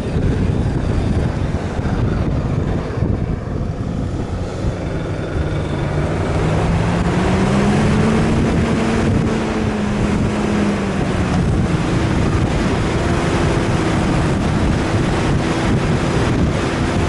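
An off-road 4x4 vehicle's engine running under load, its pitch climbing about a third of the way in and dropping back a few seconds later, then holding steadier. Heavy wind buffets the microphone throughout.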